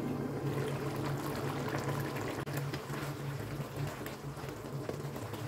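Potato slices in a thin yogurt sauce bubbling and crackling as they simmer in a kadai, with a spatula stirring through them, over a steady low hum.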